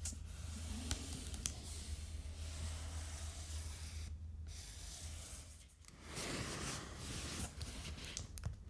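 Fingernails scratching and rubbing across the surface of a cardboard shipping box and its packing tape, with a few sharp taps, over a steady low hum.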